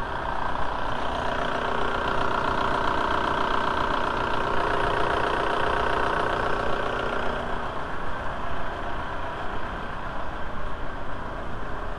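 VW 1.9L ALH TDI four-cylinder turbodiesel engine idling steadily at operating temperature, coolant holding at 90 °C as the thermostat starts to open. It grows a little fainter after about eight seconds.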